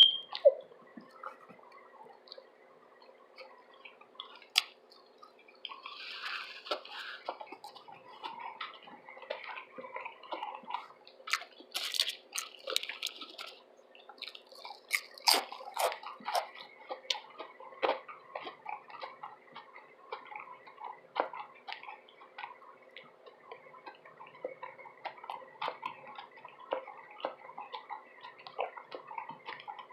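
Close-miked chewing of a loaded veggie tuna sub sandwich: a near-continuous run of small wet mouth clicks and crackles, with a couple of sharper clicks in the first second.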